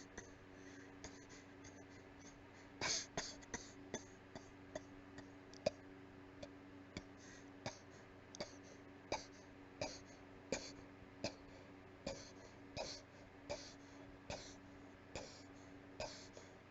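Weak, breathy coughing fit: a long string of short, faint coughs, about one or two a second, a few of them drawn out and wheezier.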